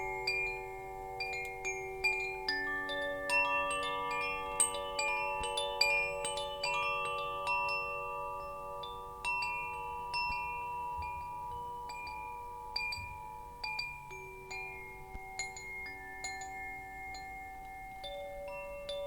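Metal wind chimes tinkling at irregular moments, each strike ringing on for several seconds so that many pitched tones overlap.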